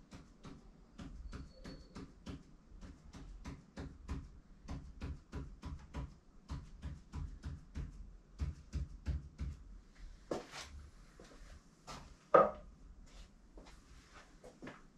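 An ink pen tapping out short tally strokes on paper, in a quick steady rhythm of about three marks a second. About ten seconds in the strokes stop, there is a brief rustle, and a single loud knock follows.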